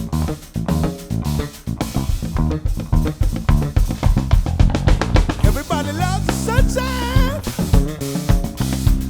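Live band playing an instrumental passage: drum kit keeping a steady beat under bass guitar and guitar. A wavering melodic line with vibrato comes in about six seconds in.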